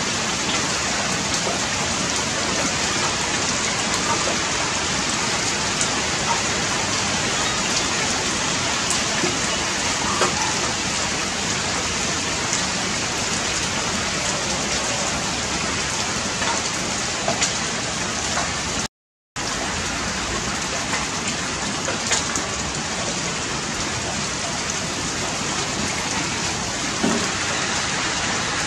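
A steady, even hiss like rain falling, with scattered light ticks over it; it cuts out for a moment about two-thirds of the way through.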